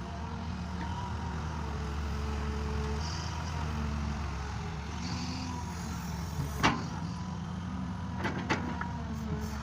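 Tractor engine running steadily under load while working a field, with a sharp knock about two-thirds of the way in and two more close together near the end.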